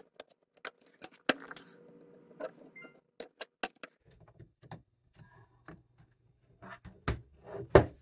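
Plastic pry tool prying at the seam of a Lenovo ThinkPad T14 Gen 4's bottom cover: a string of sharp plastic clicks and knocks as the cover is worked loose, the two loudest near the end.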